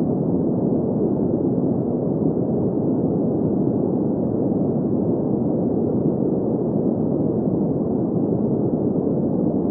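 Steady green noise: an even, unchanging hiss centred on the low-middle range, with nothing above about 2 kHz.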